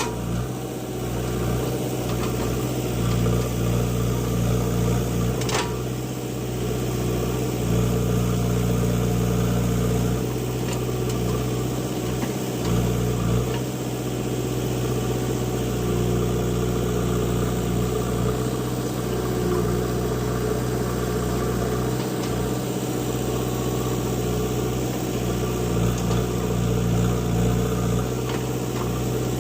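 JCB 3DX backhoe loader's diesel engine running steadily, its note shifting a few times. There is one sharp click about five seconds in.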